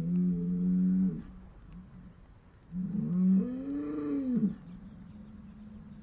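Cows mooing: two calls, a short one at a steady pitch right at the start, and a longer one about three seconds in that rises and then falls in pitch.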